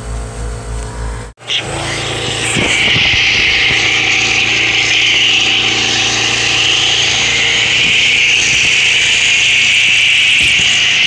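Foam cannon on a pressure washer spraying, a loud steady hiss of foam hitting a car's body panels. It starts suddenly about a second and a half in, after a short low pulsing sound that cuts off abruptly.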